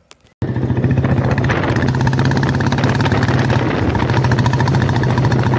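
Royal Enfield Bullet's single-cylinder engine idling steadily, heard at the exhaust silencer; the engine is freshly rebuilt with a heavier crankshaft fitted, which is meant to give it a heavier thump. The sound cuts in about half a second in.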